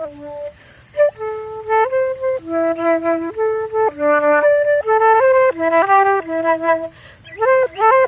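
A solo flute improvising a slow melody of held notes that step up and down, with a brief pause just under a second in and a quick run of short notes near the end.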